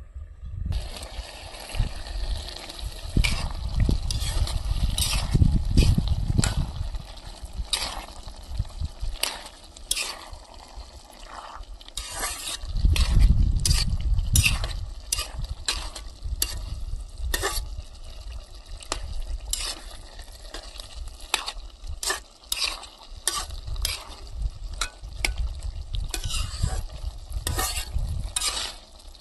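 A spoon or ladle stirring and scraping in a cooking pot, with repeated sharp strokes over the steady sizzle of frying food. Two spells of low rumble come a few seconds in and again about thirteen seconds in.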